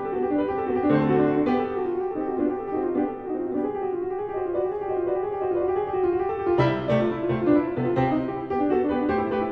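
Solo grand piano playing classical music. Through the middle comes a quieter stretch of fast, wavering notes in the middle range with no bass; about two-thirds of the way in, a loud chord brings the low notes back.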